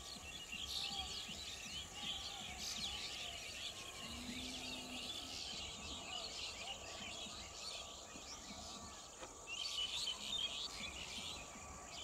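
Small birds chirping and twittering in an outdoor chorus of short, quick, overlapping calls over a faint steady background hiss, easing briefly about eight seconds in before picking up again.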